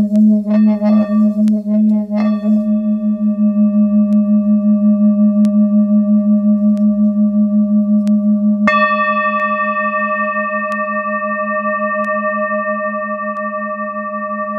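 Tibetan singing bowls ringing: a few light strikes in the first two seconds, then a deep bowl tone that wavers in a steady pulse as it rings on. About nine seconds in, a bowl is struck again and brighter overtones ring out over the deep tone.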